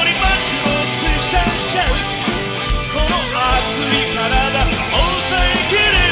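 Live rock band playing: a drum kit keeps a steady beat under electric guitars, bass and keyboards.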